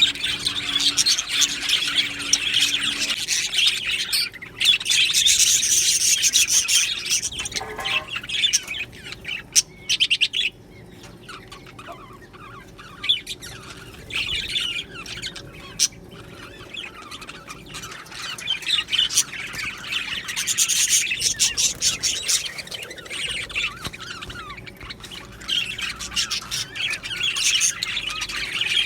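A flock of budgerigars chattering and chirping, with the odd squawk. The chatter is busy at first, thins out for several seconds in the middle, then grows busy again near the end.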